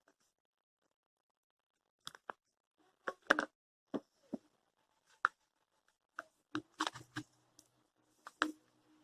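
Irregular sharp clicks and knocks, about a dozen, beginning after a couple of seconds of near silence: a plastic cup and mixing tool being handled and tapped while toothpaste slime is mixed.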